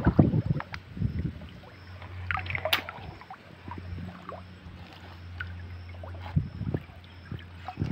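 Scattered footsteps and rustling through debris on a muddy riverbank, with one sharp click near the middle, over a steady low hum.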